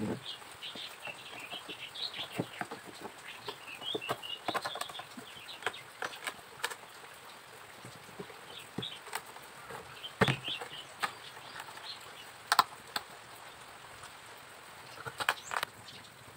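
Small birds chirping on and off in the background, with scattered sharp taps and knocks of wooden cage-frame pieces being handled on a worktable, the loudest a few knocks in the second half.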